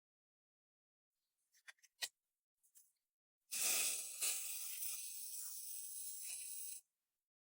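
WD-40 multi-use aerosol can spraying: a steady hiss that starts suddenly about halfway through, lasts about three seconds and cuts off sharply, after a few faint clicks.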